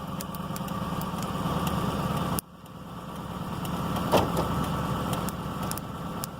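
Car engine idling steadily after starting on a new battery. The sound drops off abruptly about two and a half seconds in, then builds back up over the next couple of seconds.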